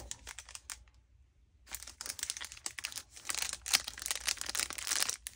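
Cellophane sleeve on a cigar crinkling as it is handled: a few light clicks at first, then after a short pause a dense, continuous crinkling for about three and a half seconds.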